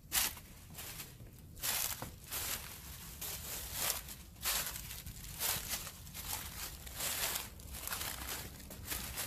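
Footsteps crunching through dry fallen leaves and loose rock at a walking pace, each step a short, dry crackle.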